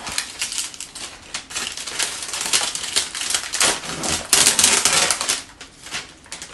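Clear plastic flower sleeve crinkling and rustling as it is handled and pulled off a potted orchid: a rapid run of crackles, loudest a little past the middle and easing off near the end.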